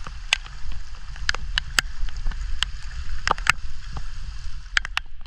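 Wind buffeting the camera microphone as a steady low rumble, with irregular sharp taps of raindrops striking the camera at the start of a tropical downpour.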